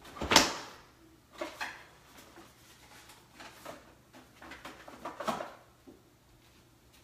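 Kitchen handling noises as someone fetches something: a sharp bang about half a second in, then a few softer knocks and clatters spaced out over the next few seconds.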